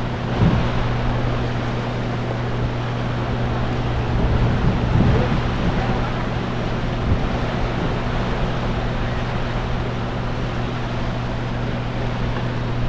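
A steady low engine hum over wind and water noise, with a few brief thumps about half a second, five seconds and seven seconds in.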